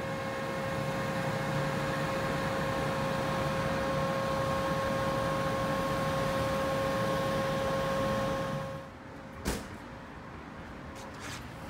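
Steady airport apron noise from parked jets and ground equipment: a broad hum with a constant mid-pitched whine. It drops off abruptly about eight and a half seconds in, and a single sharp click follows about a second later.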